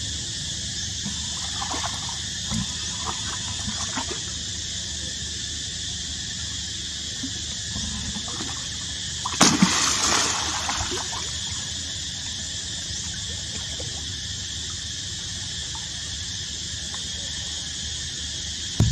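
Steady trickling water at a pond's edge, with one brief splash about halfway through.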